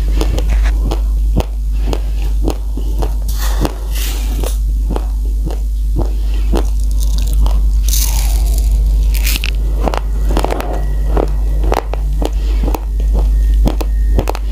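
Raw uncooked rice crunched and chewed close to the microphone: quick, irregular sharp cracks of grains breaking, several a second, over a steady low hum.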